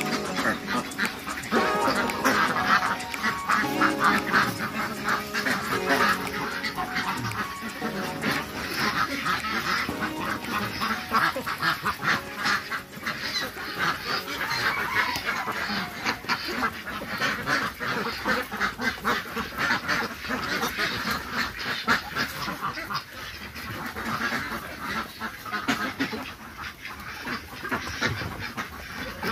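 A large flock of domestic ducks quacking, many calls overlapping continuously.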